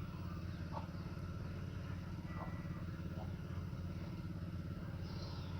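A small engine running steadily, a low even hum, with a short burst of high hissing noise near the end.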